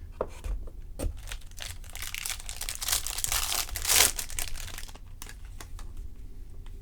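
Wrapper of a 2020 Topps Series 2 baseball card pack being torn open and crinkled, with a few sharp clicks at first and then a dense crackle in the middle, loudest about four seconds in.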